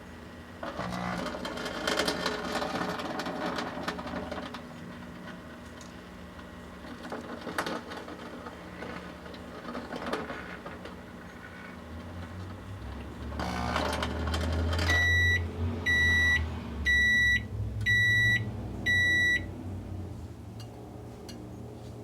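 Microwave oven running with a solar lantern burning inside, crackling and popping in bursts. Near the end the oven beeps five times, about once a second, as its cycle finishes.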